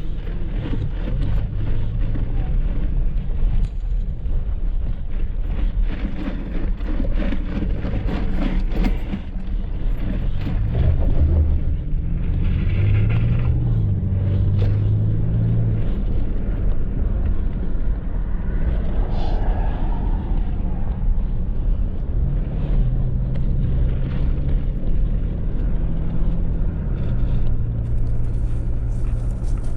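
Pickup truck engine and road rumble while driving, the engine note rising and falling in pitch a few times as it changes speed.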